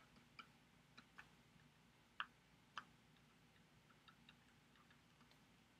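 Faint, irregular clicks of a stylus tapping on a tablet screen during handwriting, the two loudest a little past two seconds in, about half a second apart.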